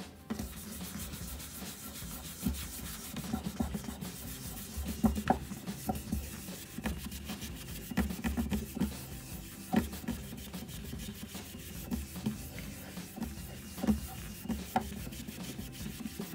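A cloth being rubbed by hand over a varnished wooden tabletop in quick, uneven scrubbing strokes, working at a white water stain in the finish to lift it out.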